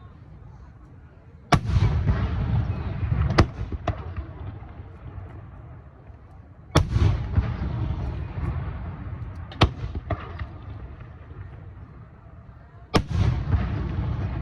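Aerial firework shells fired one at a time: three loud booms about five seconds apart, each followed by a rolling, echoing rumble and a sharper crack a couple of seconds later.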